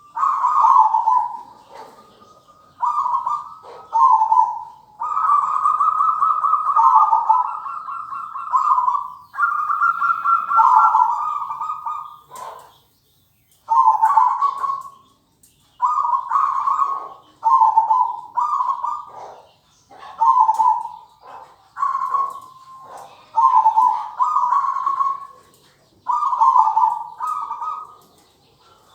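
Perkutut (zebra dove) cooing: repeated rolling, trilled coo phrases at much the same pitch, with short pauses between them and a longer break about halfway through.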